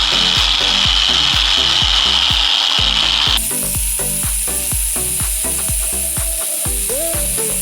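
Electric sander with a buffing wheel polishing a Honda CB400Four's aluminium engine case with polishing compound: a steady high whine with rubbing that cuts off suddenly about three and a half seconds in. Background music with a steady beat plays throughout.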